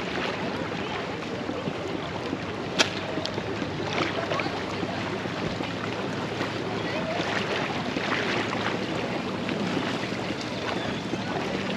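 Water splashing and lapping along the hull of a moving kayak, with wind on the microphone. A faint steady low hum runs underneath, and there is one sharp click about three seconds in.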